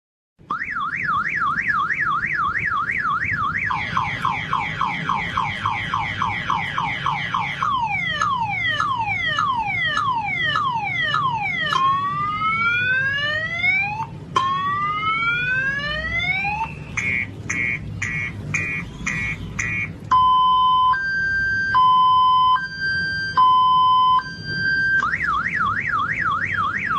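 Electronic car alarm siren cycling through its tones. It goes through a fast warble, rapid whoops, falling sweeps, two slow rising wails, quick chirps and a two-tone hi-lo, then returns to the warble near the end.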